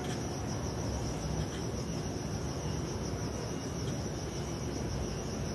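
Insects chirping in a steady, high-pitched pulsing trill.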